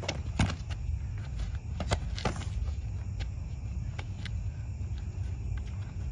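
Scattered sharp thumps and scuffs of two people boxing on asphalt: footwork and blows landing. The loudest come about half a second in and twice around two seconds in, over a steady low rumble.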